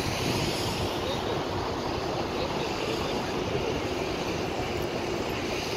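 Steady din of road traffic circling the Arc de Triomphe, with faint voices from a crowd of tourists mixed in.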